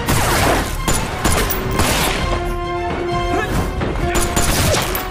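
Action-film soundtrack: a music score that settles into held notes about two seconds in, mixed with crashes and hits.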